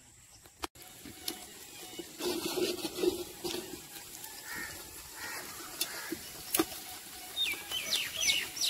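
Outdoor background with scattered sharp clicks and a faint murmur. Near the end comes a run of short, high, sliding chirps.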